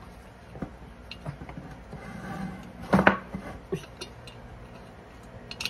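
Light metallic clicks and knocks as a long bolt is worked through a motorcycle's monoshock mounting bracket, with one louder clunk about three seconds in.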